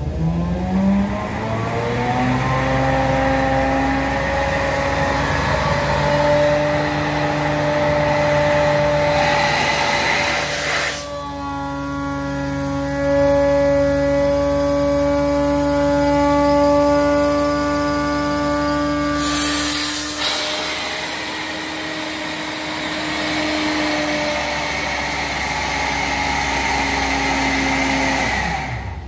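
HydraMaster CDS 4.8 clutch-drive truckmount carpet-cleaning unit, its vacuum blower and pump driven by the truck's Chevrolet 6.0 V8, running with a rising whine as it comes up to speed at the start and a falling tone as it winds down near the end. For about eight seconds in the middle the rush of air drops away and the blower tone steadies, with the vacuum inlets on top covered by hand.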